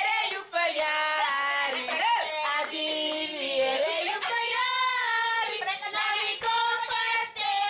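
A group of children and women singing a birthday song together, with long held notes.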